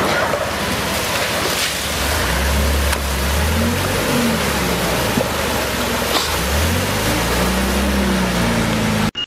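Water gushing out of a breached concrete pond and washing across pavement, over a Toyota forklift's engine running and revving up and down. The sound cuts off suddenly near the end.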